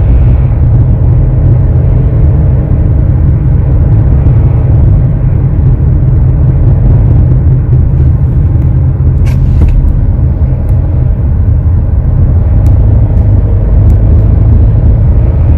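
Kia Sorento The Master heard from inside the cabin while driving: a loud, steady low drone and rumble tied to engine RPM, the noise that the Kia service centre traced to a fuel hose problem. A couple of faint clicks come about nine seconds in.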